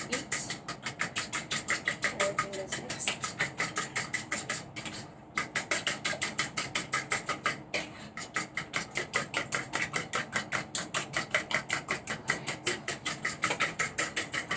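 A fork beating eggs and milk in a plastic bowl: a fast, steady clicking of about six strokes a second, pausing briefly about five seconds in and again near eight seconds.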